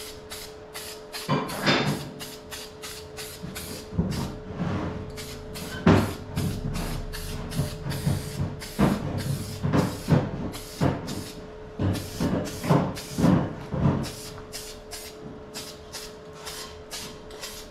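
Aerosol spray paint can spraying in many quick short bursts, several a second, with a steady hum underneath.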